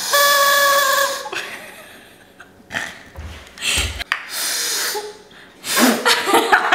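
A held musical note dies away in the first second. After it come short breaths, sips from mugs and soft laughter from two girls, with a brief breathy hiss a little before the five-second mark and laughing near the end.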